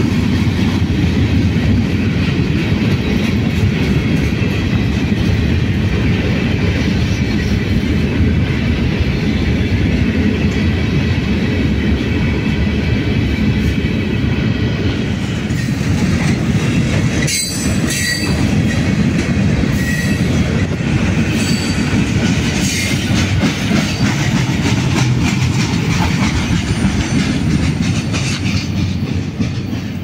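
KCSM freight train of loaded gondola cars rolling past, a steady rumble and clatter of wheels on the rails. Faint wheel squeals come and go in the second half.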